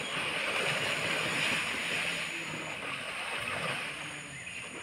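Shallow floodwater splashing and churning as bulls charge and shove through it, a steady rushing splash that eases slightly near the end.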